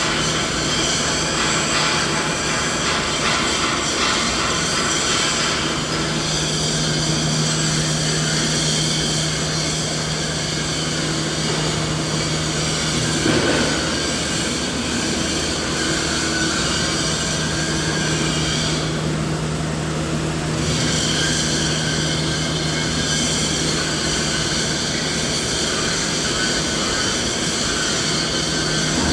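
Continuous machine noise used as a tinnitus masking sound: a steady low hum under a dense whirring hiss with many held tones, the level unchanging throughout.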